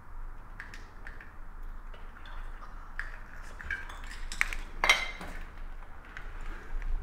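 Scattered light clinks and knocks of hard objects, with a louder cluster of them about four and a half to five seconds in.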